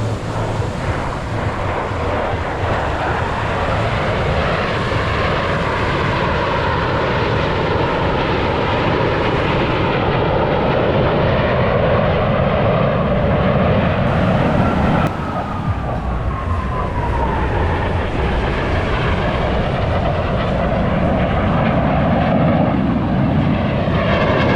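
Jet engines of F/A-18 Super Hornets flying overhead: a loud, continuous jet noise whose pitch slowly shifts, with a falling whine about fifteen seconds in as a jet passes.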